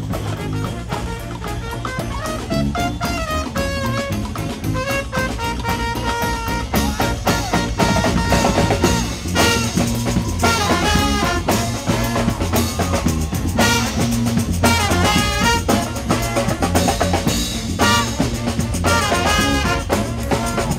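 New Orleans-style brass band playing, horns over a steady drum beat.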